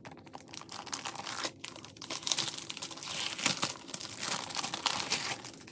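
Clear plastic photocard sleeve pages crinkling as hands handle them and smooth them flat, with a couple of brief pauses.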